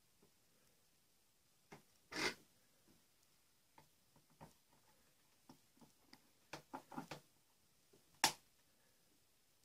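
Small plastic clicks and rustles of an action figure and its parts being handled and fitted together by hand: a brief rustle about two seconds in, a run of light clicks later on, and one sharper click near the end.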